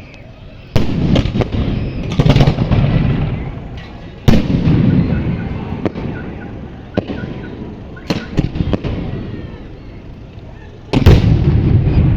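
Fireworks going off: loud bangs every second or two, some in quick clusters, each followed by a rumbling echo that dies away.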